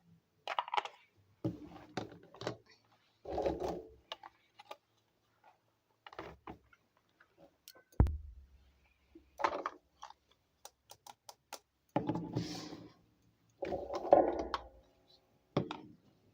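Small plastic toy kitchen pieces being unpacked and handled: irregular clicks, clacks and taps as they are picked up and set down, with one sharp thud about halfway and a brief ringing clack near the end.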